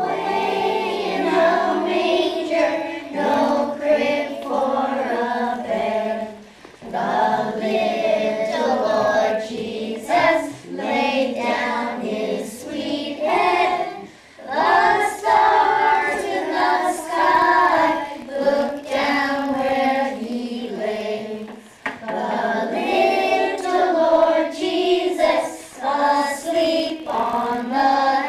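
A group of young girls singing a song together, in phrases with short breaks between them.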